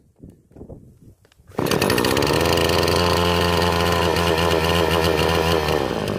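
A Radley 50cc two-stroke chainsaw is pull-started and catches about one and a half seconds in, then runs at a steady idle. The saw has sat unused for about a month.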